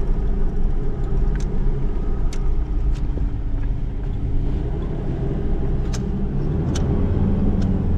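Ford four-wheel drive's engine running steadily at low speed, heard inside the cab, with a few sharp knocks and rattles as it crawls along a rough dirt track.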